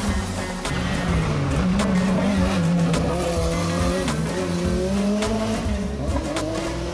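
Hill-climb race car driven hard through a bend, its engine note rising and falling as the revs change, with some tyre squeal. Background music plays as well.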